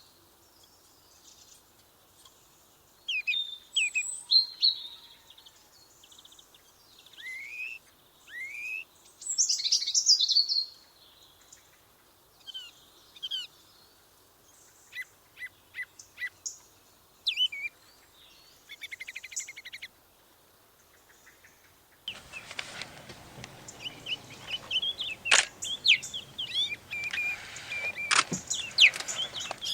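Songbirds chirping and calling: short separate calls and quick rising and falling notes with quiet gaps between them. About two-thirds of the way in, a busier chorus of bird calls starts over a steady background hiss.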